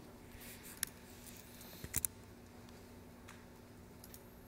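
A few scattered computer keyboard keystrokes, sharp single clicks with a close group of three about two seconds in, over a faint steady hum.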